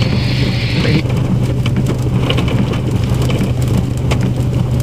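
Heavy rain and hail coming down in a severe storm, a steady wash of noise with scattered sharp ticks of stones striking, over a constant low hum. A higher hiss cuts off about a second in.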